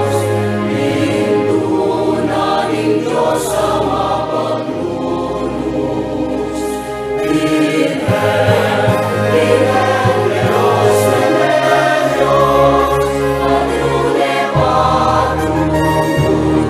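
Choral music: a choir singing sustained, slowly changing chords with instrumental accompaniment.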